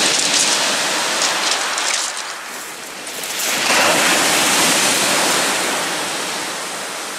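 Sea surf on a shingle beach: waves breaking and washing up the stones, with a new wave breaking loudest about three and a half seconds in, then slowly fading.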